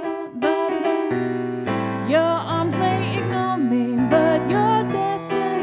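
Live music: a singer's drawn-out, wavering vocal line over sustained keyboard chords.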